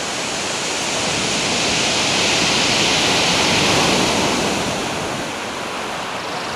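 Ocean surf breaking and washing up a pebbly beach: a steady rush that swells to a peak about four seconds in, then eases.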